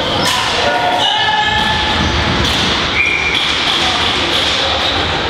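Box lacrosse game in an echoing hall: raised, held voices shouting over the knocks and shuffle of play on the floor.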